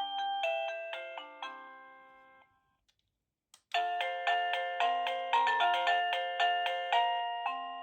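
Wireless doorbell chime playing an electronic melody of bell-like notes that dies away about two and a half seconds in. After a moment's silence and a click, a different chime tune starts and plays on.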